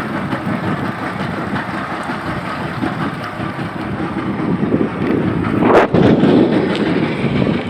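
Steady wind rushing over the microphone on an open fishing boat, with one short sharp knock about six seconds in.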